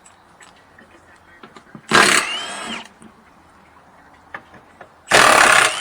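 Cordless power tool run in two short bursts of about a second each, backing out the 10 mm bolts of a truck's underbody cover. Its motor whine falls away as each burst ends.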